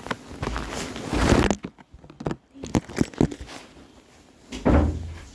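Rustling and handling noises, with a run of short sharp clicks and knocks near the middle.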